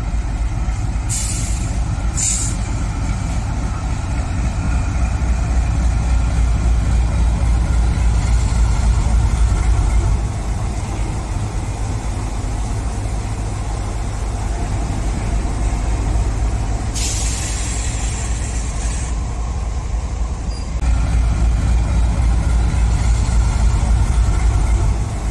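Diesel locomotive engine sound running steadily with a deep drone, easing off about ten seconds in and building again about twenty-one seconds in. Two short air hisses come about a second in, and a longer air-brake hiss lasts about two seconds around the seventeen-second mark.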